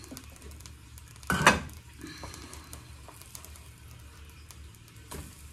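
An enamel pan lid taken off a non-stick frying pan and set down with a clatter about a second and a half in, followed by light scraping and a quieter knock near the end as a spatula works under a pancake in the pan.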